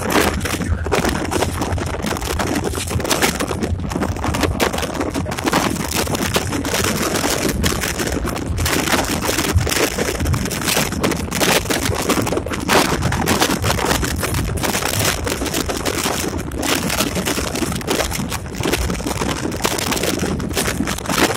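Cab noise of a moving EMD SD24 diesel locomotive: its 16-cylinder 567 engine running steadily under constant clatter and knocks from rough track, with wind buffeting the microphone.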